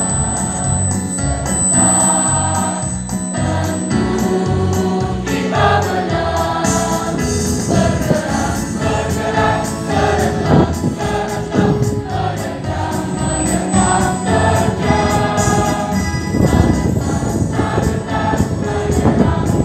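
Mixed school choir singing in parts, accompanied by an electronic keyboard with a steady beat.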